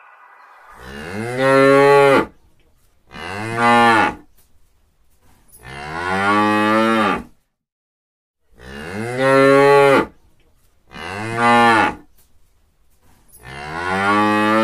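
A cow mooing, six long moos in a row, each one to two seconds, the pitch rising and then falling, with short gaps between them.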